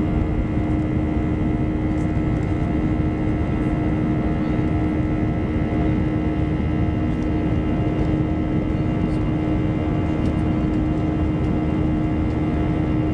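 Jet airliner cabin noise while climbing after take-off: the underwing turbofan engines and airflow make a loud, steady rush with a steady low hum and a higher whine.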